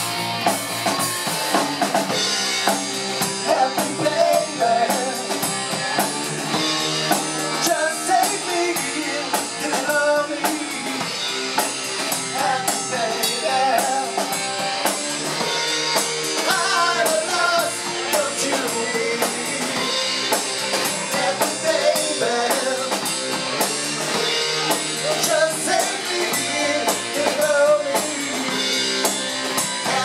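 A live rock band playing: electric guitars, bass guitar and a drum kit, with a man singing into the microphone.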